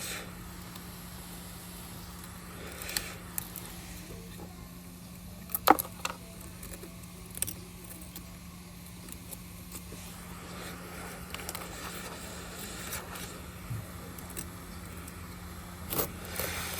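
Scattered light clicks and taps from small repair tools handling a phone, the loudest about six seconds in, over a steady low electrical hum.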